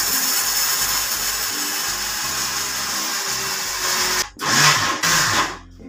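Electric mixer grinder running with a steel jar of roasted peanuts, garlic and spices being ground into masala. It runs for about four seconds, stops briefly, then gives a second short burst of about a second.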